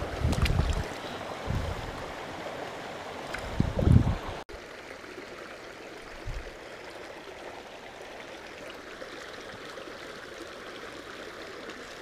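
Small rocky creek running over stones in a steady rush. In the first few seconds there are a few low thumps, the loudest just before the sound cuts off abruptly and the flow carries on alone.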